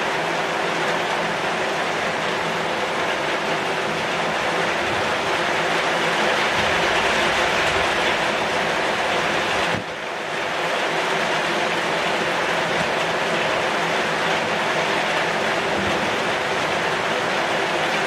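Heavy rain falling on a corrugated zinc roof and on the leaves of a pucuk merah (red-shoot) shrub: a dense, steady hiss, with a brief sudden dip about ten seconds in.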